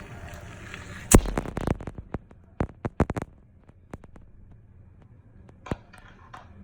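A sharp knock with a low thud about a second in, followed by a quick run of clicks and taps, then a few scattered single clicks.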